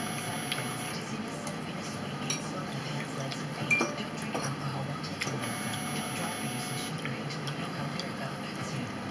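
Forks clinking and scraping on dinner plates during a meal, with a few sharp clinks over a steady background hum.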